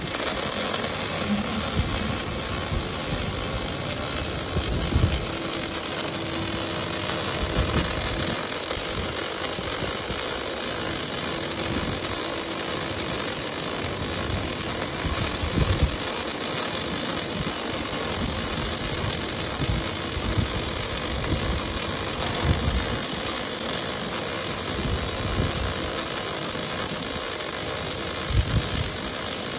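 Industrial welding robot workstation running: a steady hissing, crackling noise with irregular low thumps.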